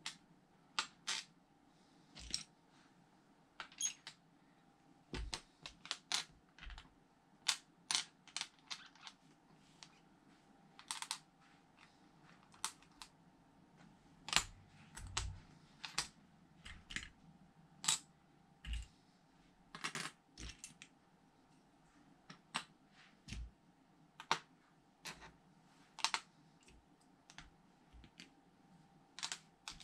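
Small plastic LEGO pieces clicking and tapping as they are picked up, set down on the table and pressed together: irregular sharp clicks, about one or two a second.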